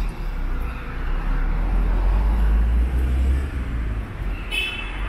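City street traffic: a low rumble of passing vehicles that swells in the middle and then eases, with a short high beep near the end.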